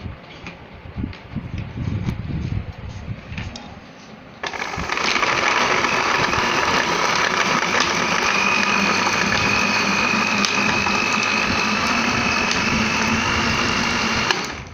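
Light clatter and knocks, then an electric blender switched on about four seconds in, running steadily as it blends mango chunks, ice and water into juice, with a steady whine. It switches off just before the end.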